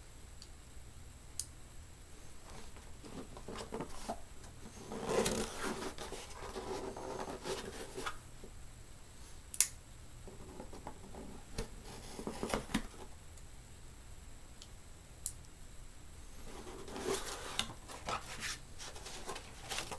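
A folding knife slitting the packing tape on a cardboard shipping box, with scraping and rubbing of blade on tape and cardboard in several short spells and a few sharp clicks, the loudest about halfway through. Near the end the cardboard flaps are pulled open.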